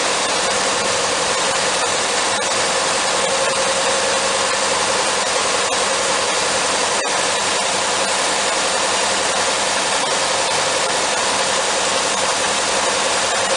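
Hercules 320 cubic-inch flathead six-cylinder engine, the upper engine of a Michigan TLDT20 truck crane, running steadily on all six cylinders after having been stuck for years.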